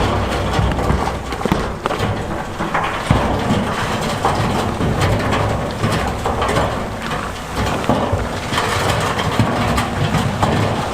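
Heavy diesel earthmoving machinery running, with big stones clattering and knocking in many irregular sharp hits as they are pushed or dumped.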